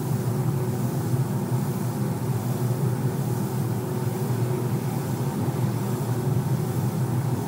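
Steady mechanical drone with an even hiss from the spray booth's ventilation and the compressed-air spray gun as the coating is sprayed on.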